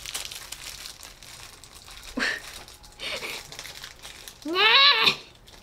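Crinkling and tearing of a blind-bag wrapper as it is opened and handled, in short irregular bursts. Near the end comes a short, loud exclamation that rises and then falls in pitch, like an "ooh".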